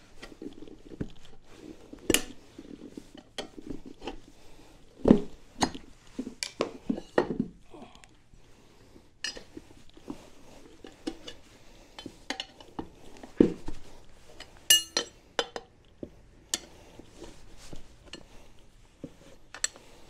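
Metal tire levers clinking and scraping against a scooter wheel's rim as the tire bead is pried over it by hand: irregular sharp metallic clicks and knocks, with a quick rattle of clicks about fifteen seconds in.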